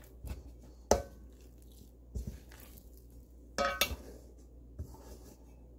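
Plastic spoon stirring thick tapioca starch and rice flour batter in a stainless steel mixing bowl, scraping and knocking against the metal. There are a few sharp clinks, the loudest about a second in and a short ringing cluster near four seconds.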